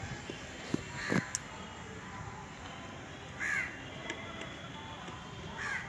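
A crow cawing three times, a short call about every two seconds.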